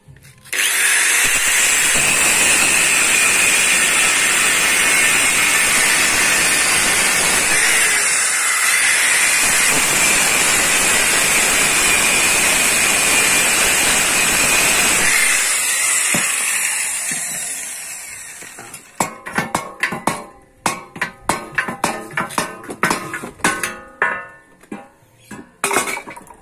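Angle grinder cutting metal: a loud, steady, high-pitched grinding that runs down and stops about 17 seconds in. Then comes a quick run of sharp knocks and taps.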